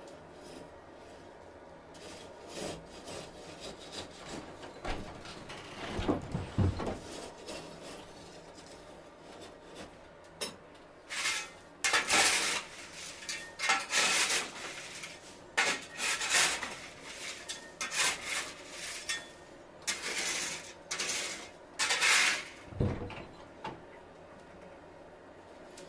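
Hand file rasping across metal in a blacksmith's workshop: a run of loud back-and-forth strokes through the second half, each about half a second long with short gaps between. Before that come softer scattered rubbing sounds and a couple of low thuds.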